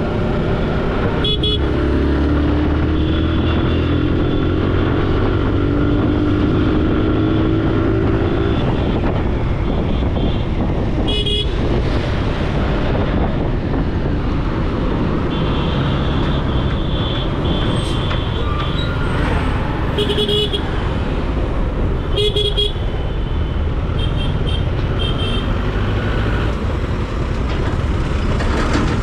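Motorcycle riding through traffic under a steady low rumble, its engine note rising through the first several seconds as it accelerates. Vehicle horns honk several times: short blasts and a few longer held honks.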